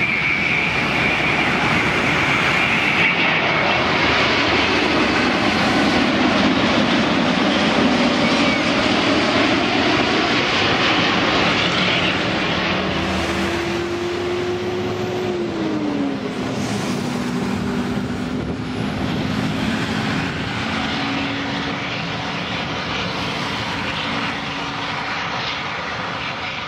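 Boeing 787-8 Dreamliner's twin turbofan engines on landing. A high whine and loud rushing noise build as the airliner approaches and passes close by, and an engine tone drops in pitch about sixteen seconds in. The noise then eases slightly as the jet rolls out on the runway.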